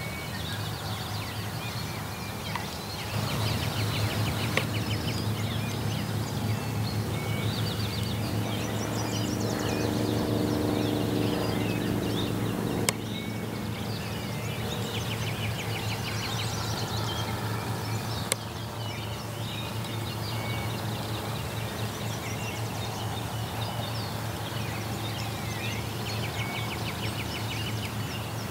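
Many songbirds singing in a dawn chorus over a steady low hum, with a couple of sharp clicks partway through.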